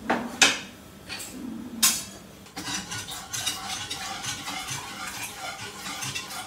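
A few sharp knocks of a utensil against a saucepan. From about two and a half seconds in, it is followed by brisk, continuous stirring, the utensil scraping and clinking round the pan as milk is worked into a butter-and-flour roux for a white sauce.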